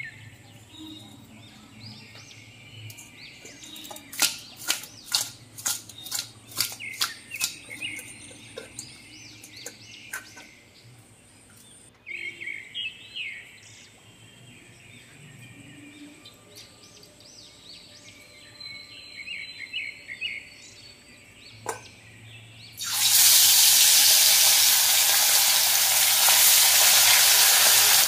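Birds chirping, with a run of about ten sharp clicks, roughly two a second, a few seconds in. About 23 seconds in, a loud, steady sizzle starts as fish pieces go into hot oil in a steel wok.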